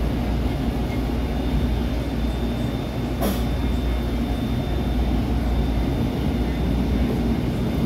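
SEPTA Route 101 trolley running along its track, heard from inside the car: a steady low rumble of the wheels and motors. A single sharp click comes about three seconds in.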